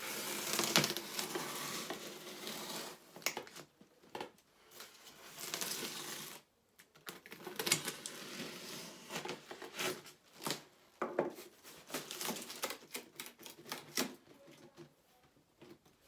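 Hands handling unboxing packaging: irregular rustling and scraping broken by frequent sharp knocks and clicks as pieces are moved and set down.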